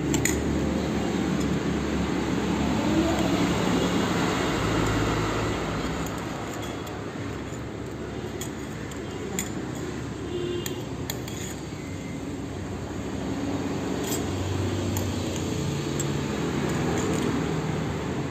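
A steady low background rumble, with a few short, sharp clinks of a metal spoon and fork against a ceramic bowl near the middle.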